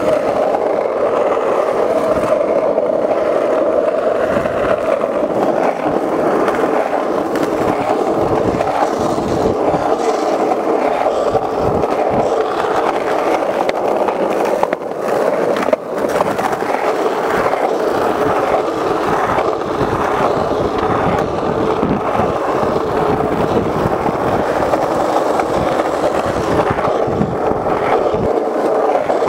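Skateboard wheels rolling over rough street asphalt, a steady loud rumbling rush. About halfway through, the rush dips briefly and there is one sharp clack.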